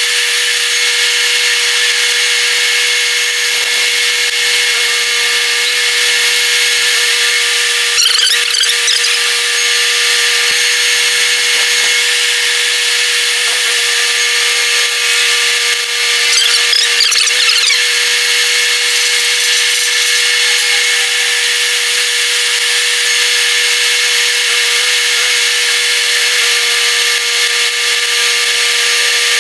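Steady mechanical whine and hiss of a machine or power tool running, with two brief wavering louder bursts, about 8 and 17 seconds in.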